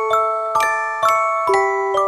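Background music: a gentle tune of struck, ringing bell-like notes, about two a second, each note sounding with a few others in a chord.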